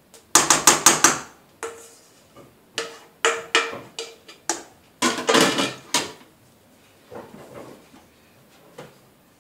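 A spatula scraping and knocking cake batter out of a metal mixing bowl in three bursts of quick strokes, with a faint ring from the bowl. Softer handling knocks follow near the end.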